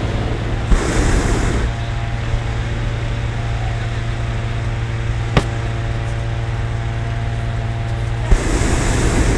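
Steady engine hum of hot-air balloon inflator fans, with two short rushing propane-burner blasts, one about a second in and one near the end, and a single sharp click midway.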